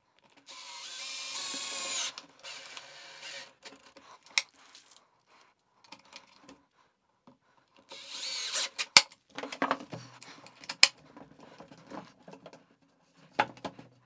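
Bosch 12 V cordless drill-driver driving short screws into a wooden box to fix a latch clamp. The motor runs about half a second in, with its pitch rising, and again about eight seconds in. Sharp clicks and knocks follow the second run.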